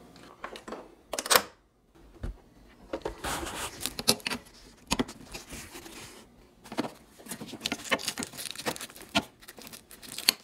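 Handling noises: scattered clicks, light knocks and rustling as equipment and fittings are handled by hand, with a sharp click about a second in.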